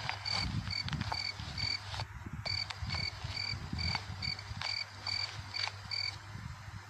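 Night-time insect ambience: a cricket chirping in a steady, even rhythm of about two short high chirps a second, with a brief pause about two seconds in. Irregular low sounds run underneath.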